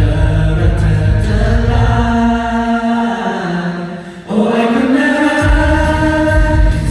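Live pop song: a singer holds long sustained notes over a backing track. The bass drops away about three seconds in, and the music dips briefly just after four seconds. Then a new held note comes in and the full band returns.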